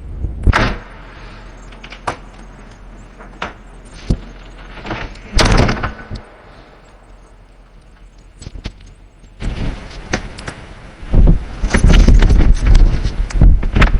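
Knocks, clicks and bangs made by hand to imitate the doors and mechanism of a swing-door lift, with no lift involved. Scattered sharp knocks, a heavier clatter about five seconds in, then a loud, dense run of bangs and rattles from about eleven seconds.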